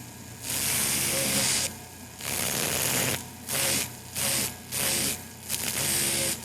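Dentist's drill giving a high-pitched whine in short bursts: about seven on-off pulses, each half a second to a second long, starting and stopping quickly.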